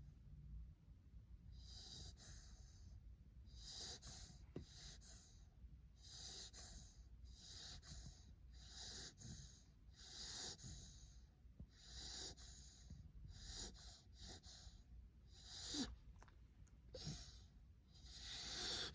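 Siberian husky puppy snoring softly in its sleep: short, faint, wheezy breaths, about one a second.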